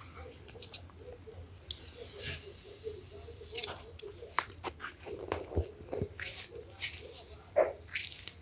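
Crickets chirring steadily in a continuous high trill, with scattered short clicks and pops over it and one sharper crack near the end; no firecracker bang, as the firecracker failed to go off.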